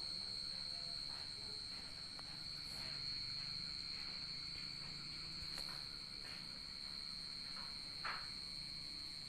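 An insect calling with a steady, unbroken high-pitched buzzing tone. A few brief, faint calls sound underneath, the loudest about eight seconds in.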